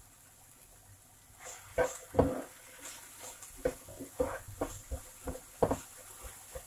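Plastic spatula scraping and knocking against a nonstick frying pan as diced potatoes and carrots are stirred and tossed, in irregular strokes that start about a second and a half in.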